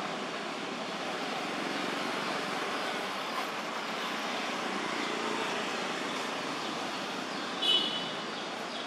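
Steady rushing outdoor background noise with no clear pitch. Near the end a single brief high-pitched chirp stands out.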